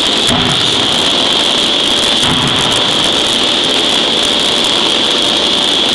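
A 5-ton electro-hydraulic closed-die forging hammer running with a loud, steady high hiss and whine, with two heavy thuds of the ram striking the hot workpiece, about a third of a second in and again about two seconds in.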